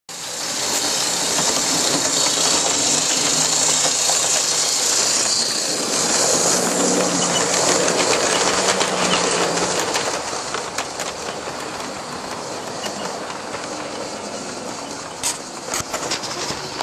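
OO gauge model train running along the layout track: a steady hum and rumble with wheel clicks. It is loudest as the train passes close by, eases off after about ten seconds, and a few sharp clicks come near the end.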